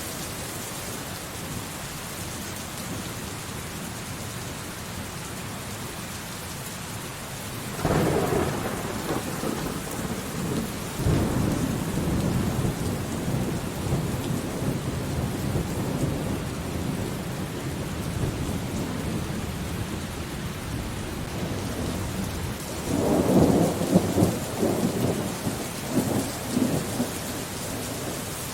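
Steady rain falling, with thunder: a sudden thunderclap about eight seconds in that rolls on for several seconds, and a second burst of rumbling thunder near the end.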